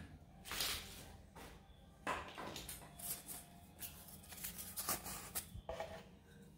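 Faint scattered light knocks and rustles of handling, over a low steady hum.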